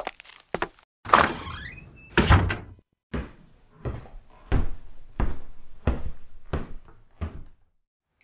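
A door creaking open, then banging shut about two seconds in. Evenly spaced footsteps follow, about seven steps.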